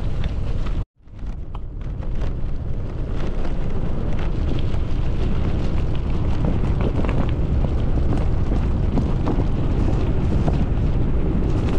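Bicycle tyres rolling over a loose gravel road, a steady rumble with many small crunches and pings of stones, under heavy wind buffeting on the action-camera microphone. The sound cuts out completely for a moment about a second in, then fades back up.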